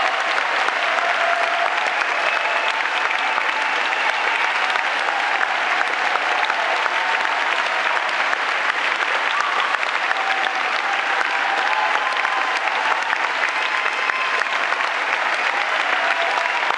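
Large audience applauding steadily: a dense, unbroken clatter of many hands clapping, with a few voices calling out faintly within it.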